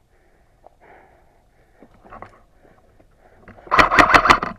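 Airsoft gun firing a short rapid burst of about five shots near the end, after a few seconds of faint rustling.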